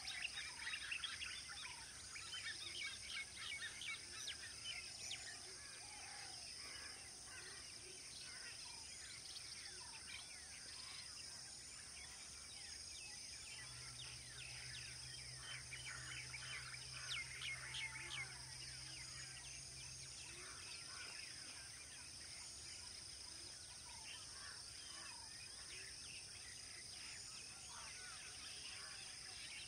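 Faint outdoor ambience of many small birds chirping, over a steady high-pitched whine. A low hum comes in for several seconds in the middle.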